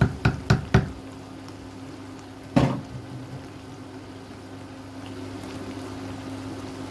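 Fish in tomato and red pepper sauce simmering in a pan on an induction hob, over a steady hum. Four quick knocks come in the first second, and another knock about two and a half seconds in.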